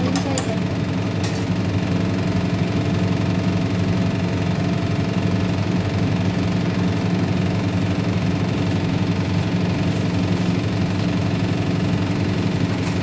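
Steady low machine hum made of several even pitches, like a motor running, with one sharp click about a second in.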